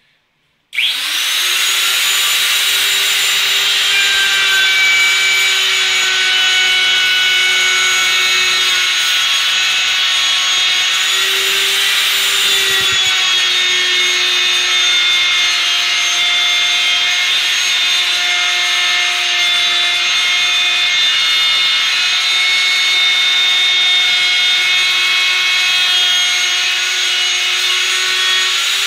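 Handheld router with a flush-trim bit switched on about a second in, spinning up quickly to a steady high whine, then running continuously as it trims a wooden edge flush, its pitch dipping slightly now and then under the cut.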